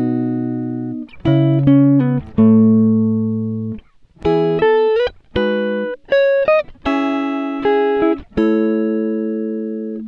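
Background music: a plucked string instrument, like a guitar, playing slow single notes and chords that ring out and fade, several of them sliding up in pitch.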